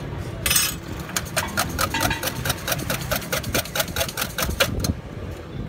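Metal cooking utensils clinking rapidly and evenly against steel at a griddle, about six strikes a second for several seconds, after a short hiss about half a second in.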